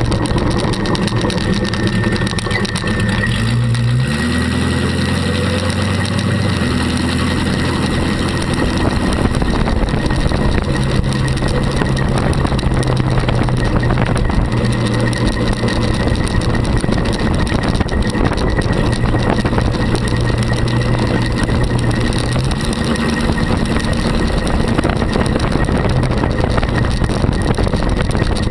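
Small-block Chevy 350 V8 of a custom trike running under way, its engine note rising about four seconds in and then holding at a steady cruise, with wind and road noise over the microphone.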